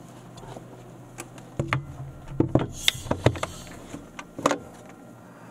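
Clunks and clicks of the Bloodhound LSR's cockpit hatch being fitted and latched over the driver, heard from inside the cockpit: a run of sharp knocks and thuds from about a second and a half in until near the end, over a low steady hum.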